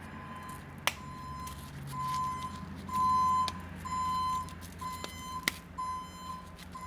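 A steady electronic beeping, about one half-second beep a second, over a low machine hum. Two sharp clicks, about a second in and again after five seconds, fit a metal ring snap being pressed shut.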